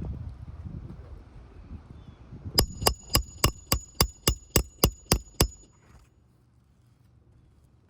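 Low scuffing and handling noise on the roof, then a hammer rapidly tapping a roofing nail, about a dozen quick ringing metal strikes over roughly three seconds, fixing a replacement asphalt shingle.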